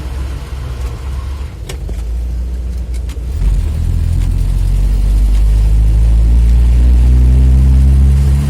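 UAZ-469 engine running on the move. It is a low drone with a couple of light clicks, grows louder about three and a half seconds in, then rises steadily in pitch as the vehicle accelerates.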